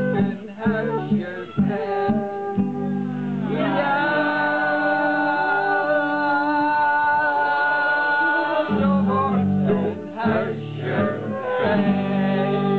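A group of people singing a Dutch folk-style song together to strummed guitar; for about five seconds in the middle the singers hold one long note before the strumming picks up again.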